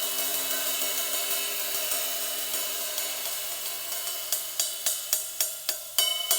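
Early-1960s 18-inch A Zildjian sizzle ride with factory rivets being played in a ride pattern, the rivets sizzling in a continuous bright wash. About four seconds in, the strokes turn harder and louder, about three a second. A 2-inch crack has been cut out of the cymbal.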